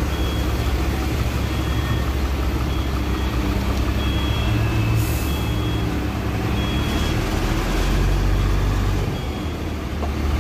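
A Sany concrete mixer truck's diesel engine running, with its reversing alarm beeping steadily about once a second. There is a brief hiss about halfway through, and the engine rumble swells near the end.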